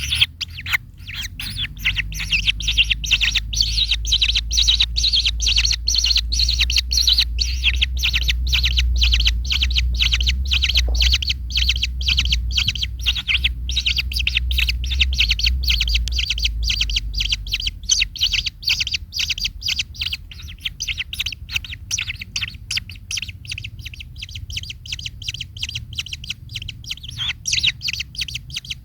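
Kingfisher (burung tengkek) calling in a rapid, continuous run of short, high chirps. A low rumble sits underneath for the first two-thirds, then stops.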